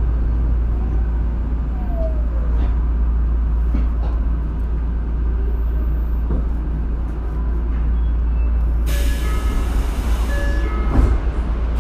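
Tokyo Metro Marunouchi Line 02 series subway train running, heard from inside the car as a steady low rumble with brief wheel squeals. About nine seconds in, a hiss joins with thin squealing tones.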